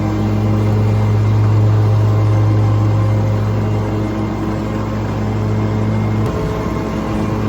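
Steady drone of a vehicle driving, heard from inside the cab: a low engine hum with road noise, which dips briefly about six seconds in before settling again.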